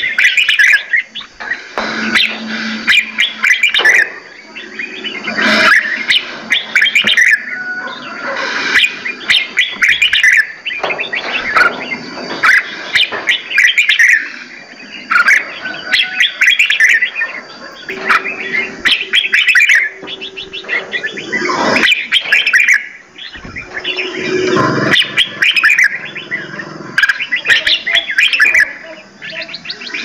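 Several caged songbirds in an aviary chirping and calling over one another in a busy, unbroken run of quick chirps, with scattered sharp clicks among them.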